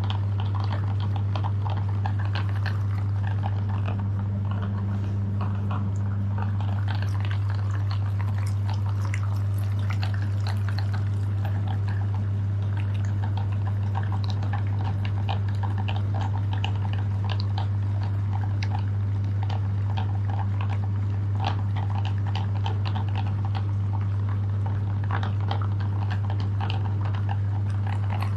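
Electric meat grinder running with a steady motor hum, with irregular crackling and crunching over it as chocolate bars are ground through it.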